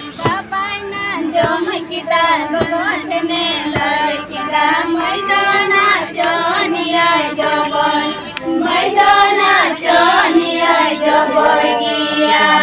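A Santali song: a high voice sings a bending, ornamented melody over music with light percussion taps.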